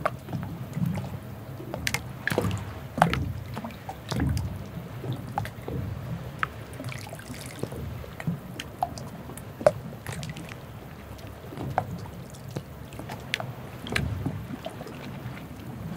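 Harbour ambience: a low rumble with water lapping and dripping, and scattered sharp knocks and clicks at irregular moments, the loudest about three seconds in and again near ten seconds.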